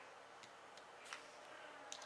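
Three faint, light clicks of small tools against an iPhone 4S's insides as the logic board is worked at, the middle one the loudest.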